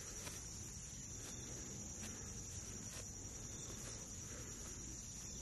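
Faint, steady high-pitched drone of insects, with a low rumble underneath.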